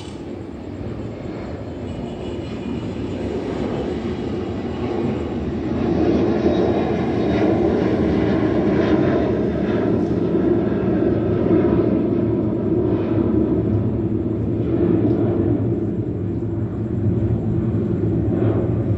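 Airbus A330-200 twin-engine jet airliner at takeoff power: a loud jet rumble that builds over the first several seconds, then holds loud with slight swells as the airliner passes.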